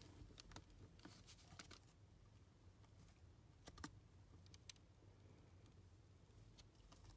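A few faint, short clicks and ticks from a goo-filled squishy toy being squeezed and handled by hand, over near-silent room tone.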